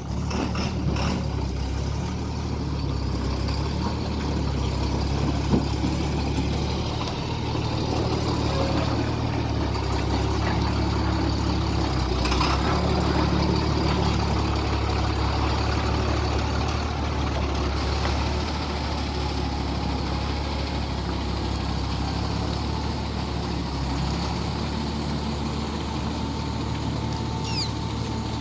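Truck engine running steadily at low speed.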